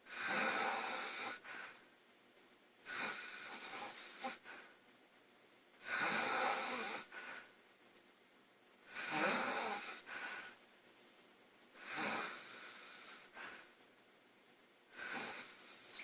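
A woman snoring loudly: a hissing, rasping snore about every three seconds, six in all, each followed by a shorter, weaker breath.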